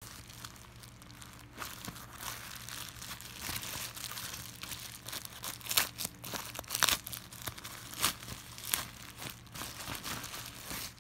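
A black plastic bubble mailer crinkling and rustling as it is handled and torn open by hand, with several sharp, louder crackles and rips in the middle.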